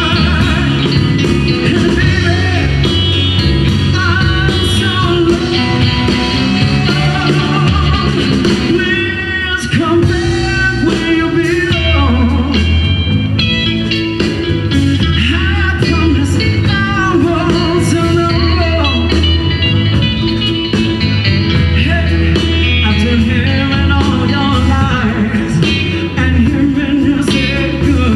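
Live blues band playing: drums, bass, guitar and keyboards under a lead line of amplified blues harp and singing, at a steady tempo.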